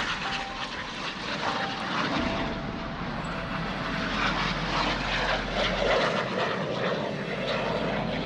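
Display jet flying past low overhead, its jet engine noise steady throughout.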